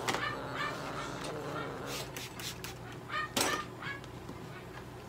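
A cat giving short, strained cries while restrained and handled, with clicks and rustling from handling and a short, loud burst of noise about three and a half seconds in.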